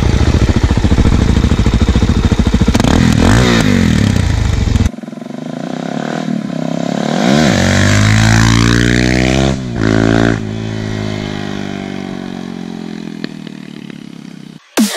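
Motorcycle engines running at riding speed, rising and falling in revs. About five seconds in, a Suzuki DR-Z400 supermoto's single-cylinder four-stroke engine revs up hard as it accelerates past. Its pitch drops as it goes by, and it fades as it rides away.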